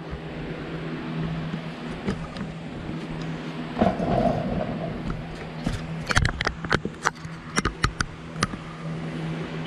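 Handling noise as a small camera is moved and set in its mount: rubbing and shuffling, then a run of sharp clicks and knocks in the second half, over a steady low hum.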